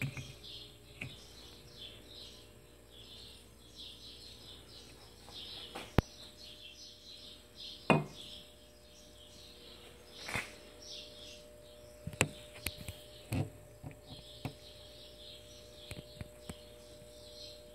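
Several sharp knocks and clicks, the loudest about six and eight seconds in, over a faint steady hum. Faint high chirps repeat in the background.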